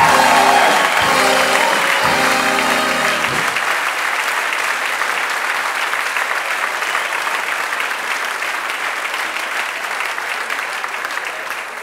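Audience applauding at the end of a song, over three long closing chords on an electronic keyboard that stop about three and a half seconds in; the clapping then goes on steadily.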